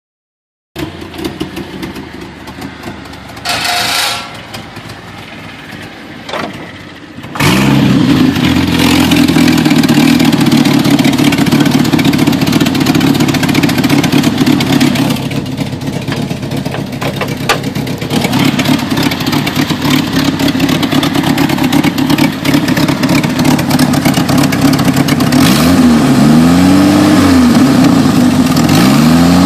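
Jeep Cherokee XJ's 4.0 straight-six engine starting about seven seconds in, then idling steadily; it is revved up and down twice near the end and revved again at the very end. The engine is the one the owner describes as running poorly and misfiring.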